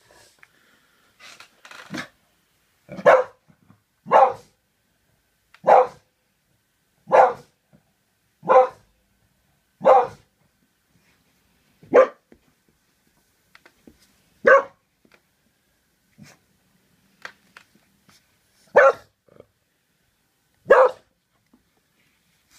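A beagle barking from under a knitted blanket draped over it, set off by the doorbell. There are about ten loud single barks one to two seconds apart, with a few softer sounds between them and a lull about two-thirds of the way through.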